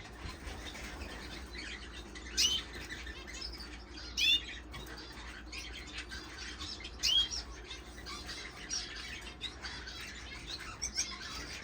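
Small caged finches calling: a few sharp chirps, each a quick falling note, spaced two to three seconds apart over faint twittering.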